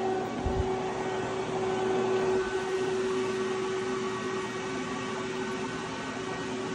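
Steady electrical hum with a constant whining tone from a powered-up FANUC R-1000iA/100F industrial robot and its R-30iB controller under test, its upper overtones fading a little partway through. A brief low thump about half a second in.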